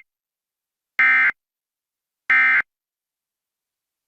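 Emergency Alert System end-of-message tones: short, shrill digital data bursts about 1.3 seconds apart, the tail of one and then two more. They signal the end of the alert, here a Required Monthly Test. A brief click comes near the end.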